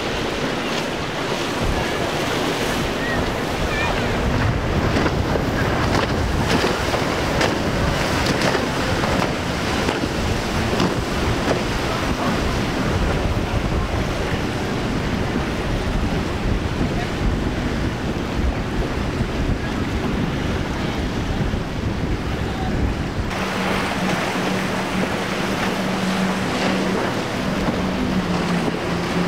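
Wind buffeting the microphone over the rush of waves and boat wakes, with no clear engine sound. About 23 seconds in, the sound changes suddenly and the steady drone of boat outboard engines running at speed comes in under the wind.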